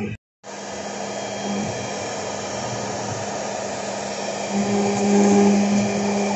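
CNC router spindle running with a V-bit carving MDF: a steady whirring hum that gets louder about four and a half seconds in. A short dropout just after the start.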